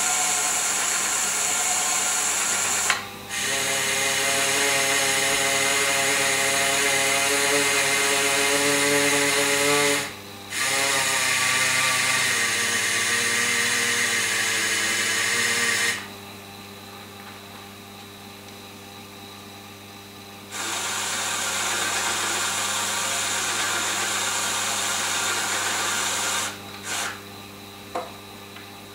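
Small electric motors of a Faller model container-terminal gantry crane whining as it travels and hoists. The whine runs in stretches of several seconds, with brief cut-outs about three and ten seconds in, a pause of about four seconds in the middle, and a few short blips near the end.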